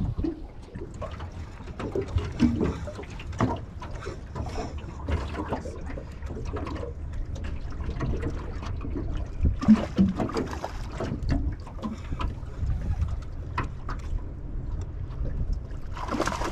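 Water slapping and lapping against the hull of a small aluminium boat (a tinny) rocking on the chop, over a steady low wind rumble on the microphone. Scattered knocks against the hull come throughout, a few louder ones about ten seconds in.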